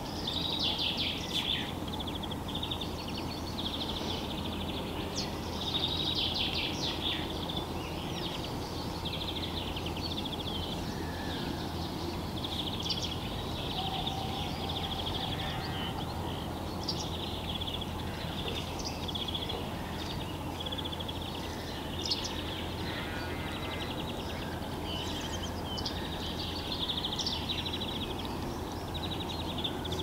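Several songbirds singing over one another, with fast high trills and chirps following almost without a break, over a steady low background noise.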